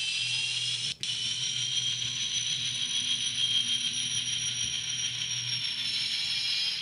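Athearn N scale SD70 model locomotive running on its track, its ESU LokSound decoder and tiny 10 mm speaker playing diesel locomotive sound: a low engine hum under a high whine that slowly rises and then falls. The sound cuts out for an instant about a second in.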